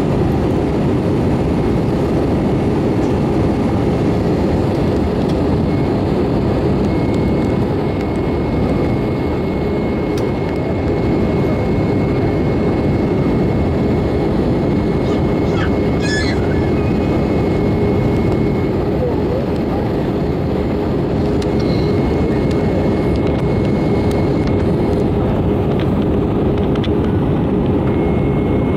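Steady cabin noise inside an Airbus A320 on approach: the engines and airflow make a constant rush with a steady low hum.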